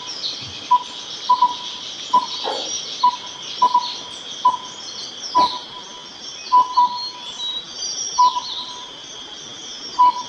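Bird calls: a loud series of short low hooting notes, single and paired, repeated about once a second, over thin high chirps and quick glides that fit a Chinese leaf warbler, with a steady high insect-like hiss behind.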